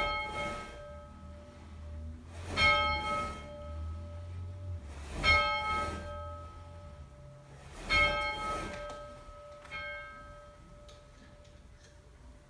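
A bell tolled five times, about every two and a half seconds, each toll a quick double strike whose pitched ring dies away slowly; the fifth toll is fainter.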